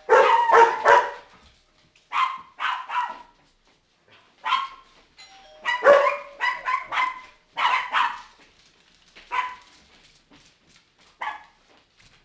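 Chihuahuas barking: high-pitched yaps in quick volleys of two to four, repeated every second or two and thinning out toward the end.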